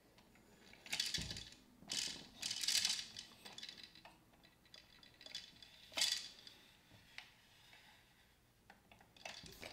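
Plastic key turning the plastic gears of a Downspin game unit, giving irregular bursts of clicking and clatter. The loudest bursts come about a second in, two to three seconds in, and about six seconds in.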